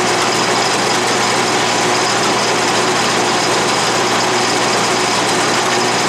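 Atlas lathe running steadily, driving a 5/16-inch end mill that side-mills quarter-inch flat stock held in a milling-attachment vise. The end mill is cutting pretty well.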